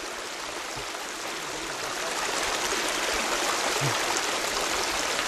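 A small creek running, an even rush of flowing water that grows a little louder about two seconds in.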